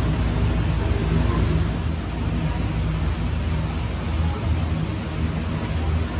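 Ceiling and wall fans in a large mosque hall running: a steady low hum with an even rushing noise.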